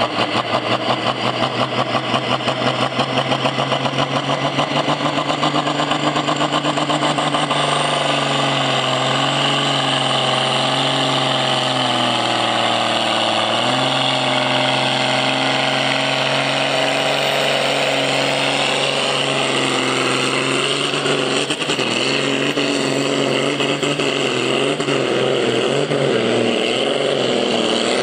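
Modified pulling tractor's diesel engine running flat out under load as it drags the weight sled down the track, pouring black smoke. It pulses for the first few seconds, then holds a steady note, dips briefly in pitch about halfway, and wavers in pitch in the last third as the tractor moves away.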